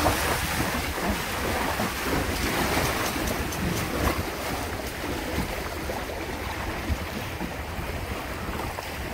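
Water rushing and splashing along the hulls of a Windrider 17 trimaran sailing through chop, with wind buffeting the microphone in a steady rush.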